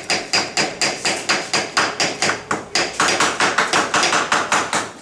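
Rapid, evenly paced hammer blows, about four a second, on the metal fixings of a wall grille being taken down, with a faint high ring after the strikes.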